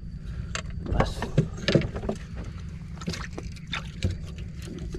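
Scattered clicks and knocks of fishing tackle and hands against a small boat's hull as a hooked fish is hand-lined aboard, over a steady low rumble.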